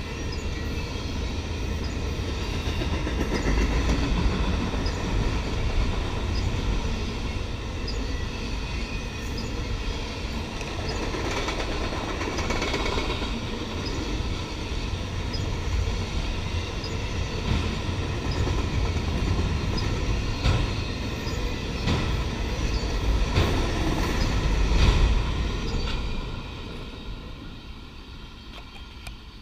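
Freight train of autorack cars rolling past, a steady rumble of steel wheels on rail with scattered clicks as the wheels cross rail joints. The last cars pass about 26 seconds in and the sound fades away.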